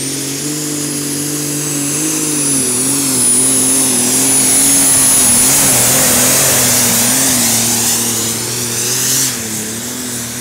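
John Deere 8520-based pulling tractor's engine running at full throttle under load during a pull, its pitch wavering, with a high whine that rises at the start and is then held. The sound eases off a little near the end.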